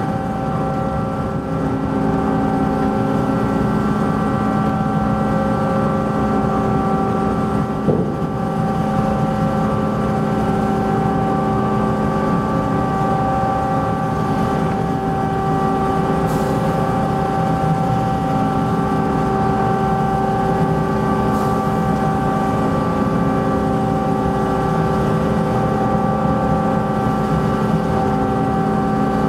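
Ferry MV Queen of Cumberland's engines and on-board machinery running steadily: a constant drone of several steady tones. A single knock about eight seconds in.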